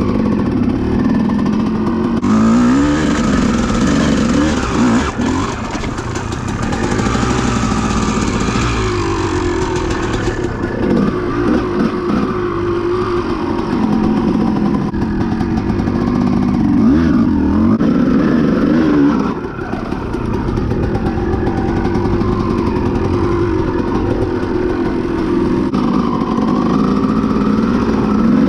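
Honda CR250 two-stroke dirt bike engine being ridden hard, its revs climbing and dropping over and over as the throttle is worked, with a brief drop in level about 19 seconds in.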